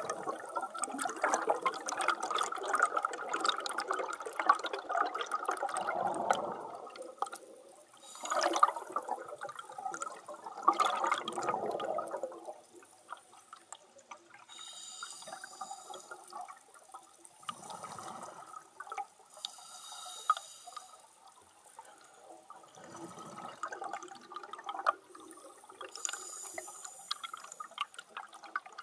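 Scuba diver breathing through a regulator underwater: bursts of exhaled bubbles rumbling and gurgling, alternating with quieter hissing inhalations. The bubbling is heaviest in the first dozen seconds, then the breaths come softer and further apart.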